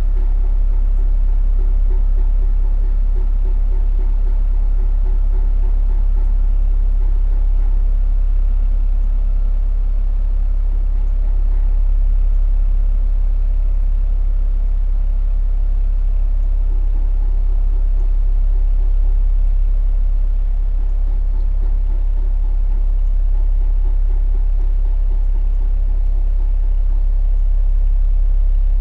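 Heat pump running: a steady, loud low hum with faint steady higher tones over it. A pulsing mid-pitched tone fades out about seven seconds in and comes back around seventeen seconds.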